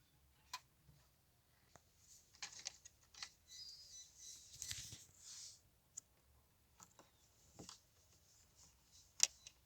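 Faint handling noises of hands working on car stereo wiring: scattered small clicks, a few seconds of scraping rustle in the middle, and one sharper click near the end.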